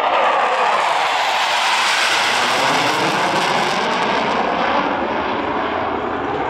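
Jet noise from F-16 Fighting Falcon fighter jets in flight: a loud, steady, broad rushing noise with faint falling tones in it, easing slightly near the end.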